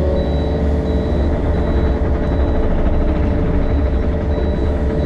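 Yanmar excavator's diesel engine running steadily while grading, with a high-pitched alarm beeping about every two-thirds of a second over it.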